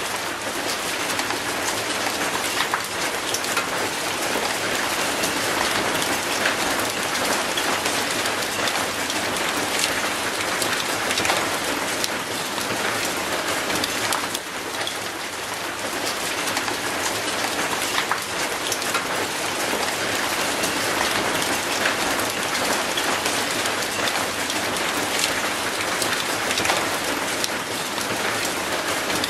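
Steady rain falling on wet concrete and an old rusty metal gate, a dense hiss of rain with many separate drop ticks.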